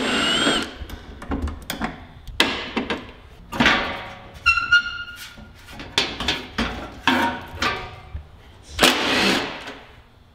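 Cordless impact driver briefly running a fender bolt out, once at the start and again about four and a half seconds in, with a short whirring hammer. In between come irregular knocks and rattles of the truck's steel fender and body panels being handled and worked loose.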